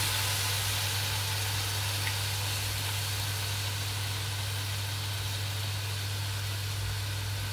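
Steady hiss of chicken in pasta sauce sizzling in a hot pan, over a low steady hum.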